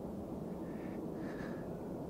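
Quiet forest background: a steady low rumble, with two faint, brief higher sounds near the middle.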